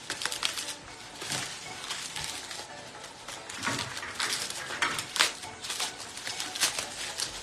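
Plastic bubble-wrap packaging crinkling and rustling in irregular crackles as it is handled and pulled open by hand.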